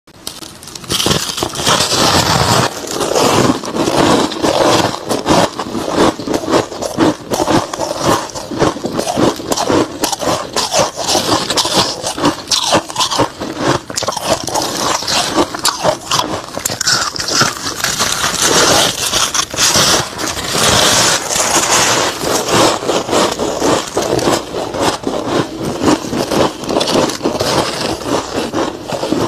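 Soft freezer frost being bitten and chewed: a dense, unbroken run of crisp crackling crunches.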